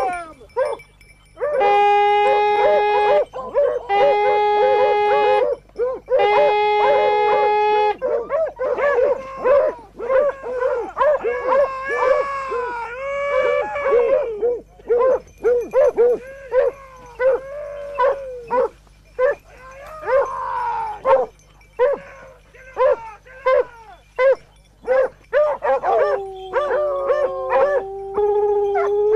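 Boar hounds giving tongue on a wild boar. Three long, drawn-out howls in the first eight seconds, then a run of quick overlapping yelps and barks, and another long howl near the end.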